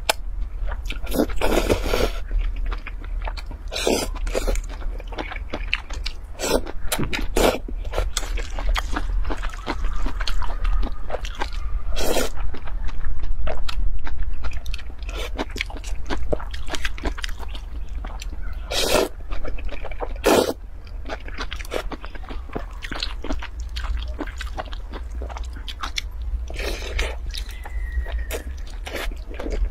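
Close-up eating sounds of a person slurping noodles and chewing them wetly, with sharp mouth clicks and smacks at irregular intervals and a longer, louder stretch about halfway through. A low steady hum sits underneath.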